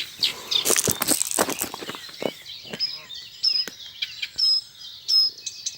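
Small birds chirping, short high notes repeated about once a second in the second half, with rustling and a few sharp knocks in the first couple of seconds.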